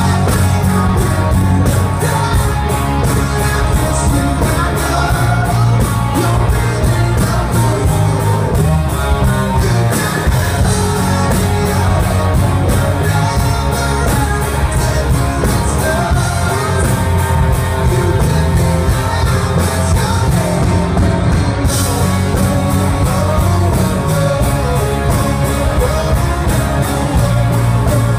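Live performance of a rock song: a man singing to his own acoustic guitar.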